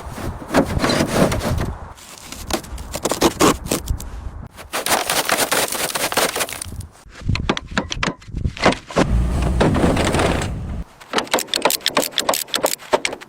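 Scraping and sharp knocks from hands-on work on an old car body, in short clips that change abruptly every second or few.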